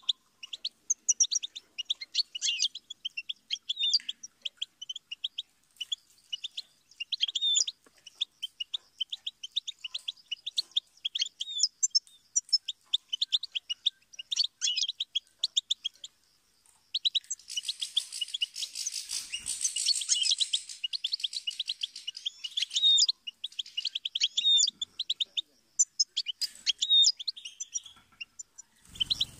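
European goldfinch singing: a fast run of high twittering notes and short trills, with a denser, busier stretch of song a little past the middle.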